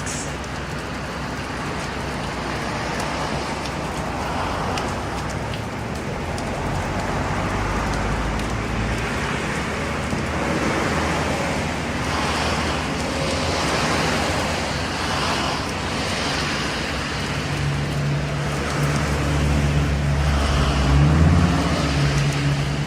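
Steady road traffic noise, with a motor vehicle's engine coming close and growing louder in the last few seconds.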